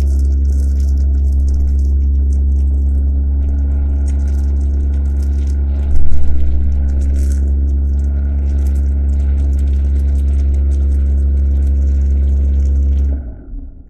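Vortex mixer running with a paint dropper bottle pressed into its silicone cup: a loud steady hum, used to stir up paint whose pigment has settled. There is a brief louder knock about six seconds in, and the hum cuts out about a second before the end.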